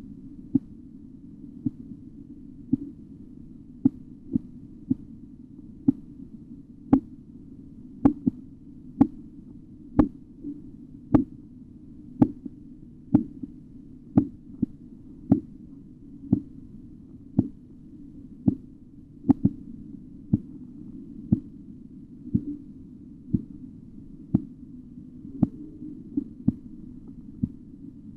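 Korotkoff sounds heard through a stethoscope as a blood-pressure cuff deflates: sharp taps about once a second, one with each heartbeat as blood forces through the partly compressed artery. The taps start faint, grow louder toward the middle, then soften toward the end, over a steady low hum.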